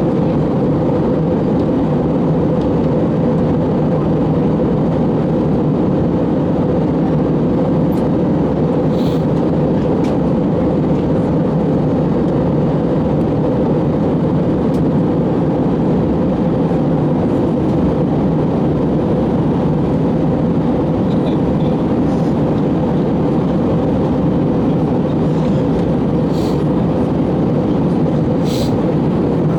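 Steady cabin noise inside an Airbus A321 in flight: a constant low drone of the engines and airflow.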